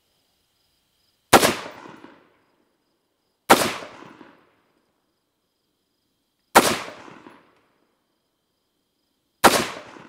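Four single rifle shots from an AR-style rifle fired from the prone position, spaced two to three seconds apart. Each is a sharp crack with a short echo trailing off: slow, aimed fire in a five-shot zeroing group.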